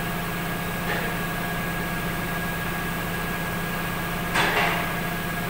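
Pickup truck engine idling steadily under an open hood, with a faint knock about a second in and a short, sharp noise near the end.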